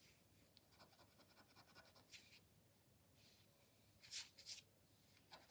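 Faint scratching of a scratch card's silver coating being rubbed off in short strokes. The strokes grow louder for a moment about two seconds in and again just after four seconds.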